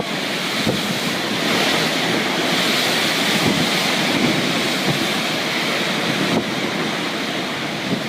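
Rough sea surf in a steady rushing noise, with wind buffeting the microphone.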